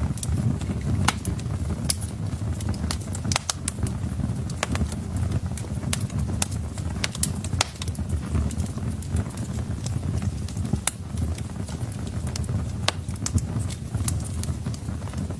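Wood fire in a fireplace, crackling with irregular sharp snaps and pops over a steady low rumble.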